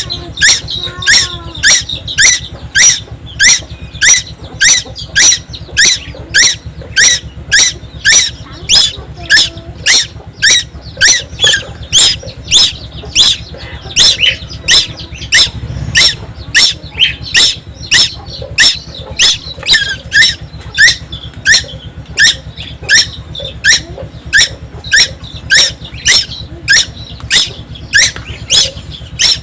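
Young tuwu bird calling nonstop: a sharp, loud, downward-sweeping call repeated evenly, a little under two times a second.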